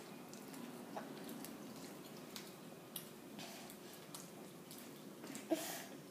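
Quiet room tone with a few faint, scattered small clicks and taps, one a little louder near the end.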